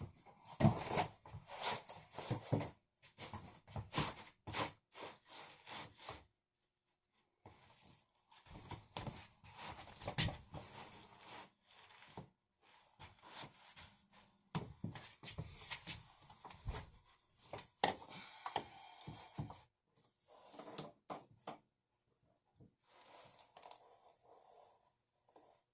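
Irregular clusters of clicks, knocks and scraping handling noise, broken by short pauses.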